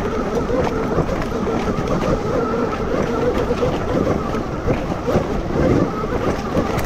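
The electric motor of an electric enduro motorcycle (MG160A 12 kW) is running at a fairly steady speed under part throttle. It gives a steady whine that wavers slightly, over a rough low rumble with scattered knocks.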